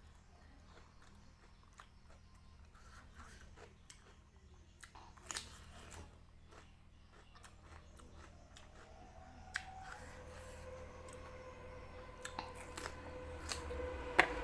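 Close-miked chewing and biting of spicy beef-skin kikil, with scattered soft mouth and utensil clicks. A faint steady hum comes in past the middle and grows louder near the end.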